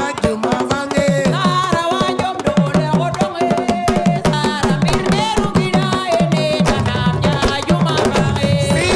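Music: a fast hand-drum rhythm under a melodic line that wavers in pitch, sung or played.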